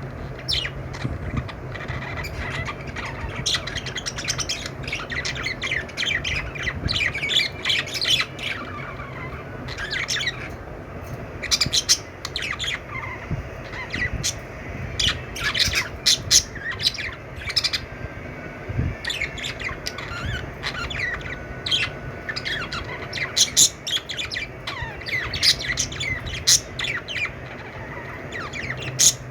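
A group of budgerigars chirping, warbling and squawking, many short calls overlapping without pause. A low steady hum sits underneath for the first ten seconds or so and returns near the end.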